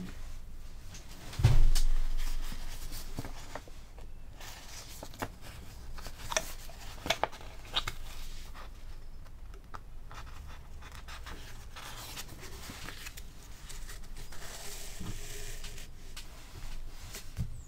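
Hand-sewing a paper signature with a needle and beeswaxed thread: the thread is drawn rasping through the folded sheets, with paper rustling and scattered light ticks and scrapes. A single dull thump on the board comes about a second and a half in.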